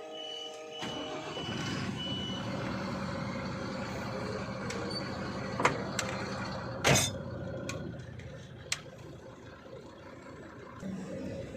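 Lorry's reversing alarm beeping in an even series for the first couple of seconds, then the truck's diesel engine running, with a few sharp clicks and one short loud burst about seven seconds in.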